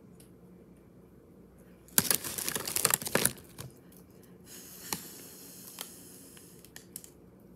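Plastic zip-top bag crinkling as it is handled, loudest for about a second partway in, then fainter rustling with a few sharp clicks.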